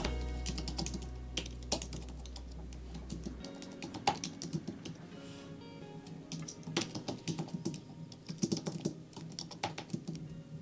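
Typing on a computer keyboard: quick, irregular runs of key clicks over soft background music, whose low bass note drops out about three and a half seconds in.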